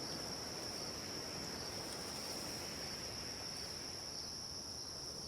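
Insects chirring in a continuous high, steady trill over a soft, even background hiss.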